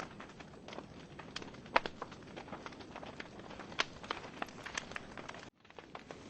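Wood fire burning in a fireplace, crackling with irregular sharp pops over a steady hiss of the flames; the loudest pop comes just under two seconds in. The sound cuts out briefly about five and a half seconds in, then fades back.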